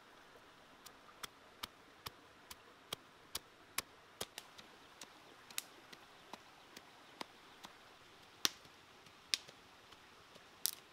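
A series of short, sharp clicks or taps, fairly even at about two to three a second at first, then sparser and irregular.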